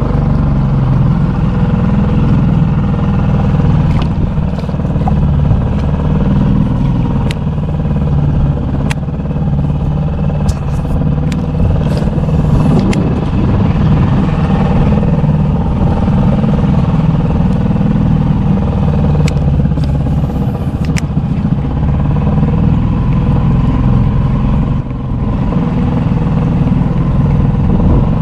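A small engine running steadily at an even speed, with a few sharp clicks and knocks over it.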